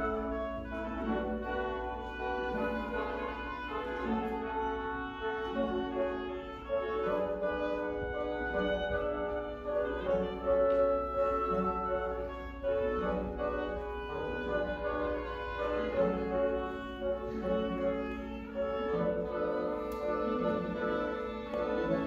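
Youth symphony orchestra playing live, bowed strings to the fore with brass, in held notes and shifting chords.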